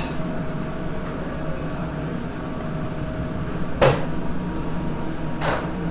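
Steady hum of commercial kitchen equipment with a faint held tone, broken by a sharp knock about four seconds in and a lighter one near the end.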